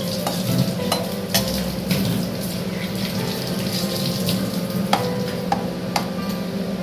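Hot oil and ghee sizzling steadily in a pan with cinnamon sticks just added, with a few sharp clicks of a utensil against the pan.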